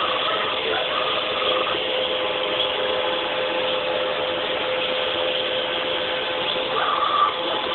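RobotX R800 robot vacuum cleaner running across a wooden floor: a steady motor and brush whir with a constant hum tone and a few short higher tones, briefly louder about seven seconds in.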